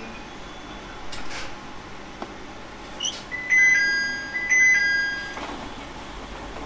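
Two-note electronic chime sounding twice inside a JR East 701 series electric train, over the train's faint running noise: the on-board chime that comes before an automated announcement.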